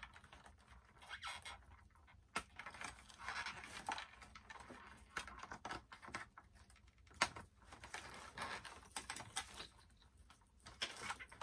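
Hands handling a doll in its plastic packaging: irregular small clicks and rustles of plastic, with a few sharper clicks.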